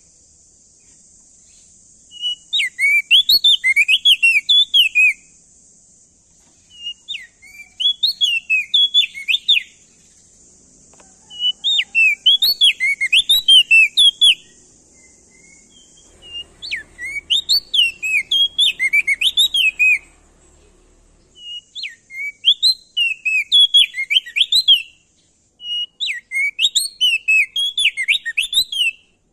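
Opior jambul (prenjak daun) singing loudly: six phrases of rapid, sharply swooping chirps, each two to four seconds long, with short pauses between. A faint steady high hiss lies under the first half.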